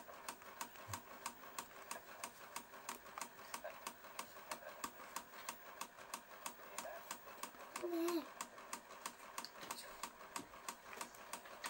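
Aiwa VHS video recorder in play, its tape transport mechanism ticking steadily at about four or five clicks a second: the characteristic mechanical noise of its replaced transport gears.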